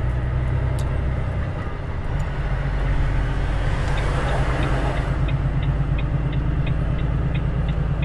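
Volvo FH500 truck's 13-litre straight-six diesel running steadily, heard from inside the cab while driving, with a brief hiss about four seconds in. From about halfway in, the turn-signal indicator clicks at an even pace, about three clicks a second.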